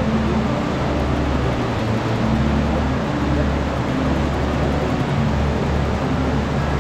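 A motor vehicle or vessel under way: a steady low engine drone under a constant rushing noise.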